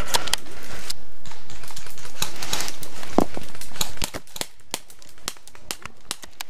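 Irregular clicks and crackles of dry leaf litter and gear as a prone player in a ghillie suit shifts position. The sound is quieter from about four seconds in, with only scattered small clicks.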